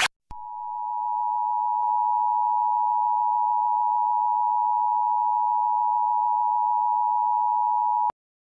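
Emergency Alert System attention signal: a steady two-tone alert sound held for about eight seconds. It swells up over its first second or two and cuts off sharply. It announces a severe thunderstorm warning.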